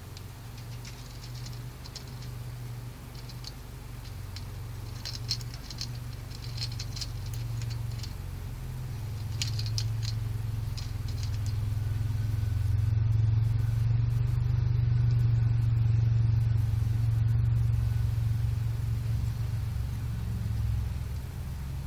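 Light clicks and rattles of a small toy truck being pushed around by a parakeet, coming in the first half, over a steady low hum that swells through the middle.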